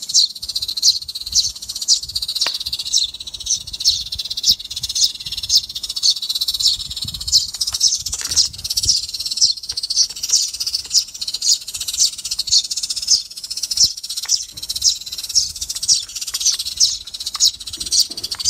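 Electronic bird-trap speaker (898 model, modified with a capacitor and a piezo tweeter) playing a looped recording of sparrow calls: a rapid, steady string of high chirps a few times a second. Faint plastic knocks come from the casing being handled.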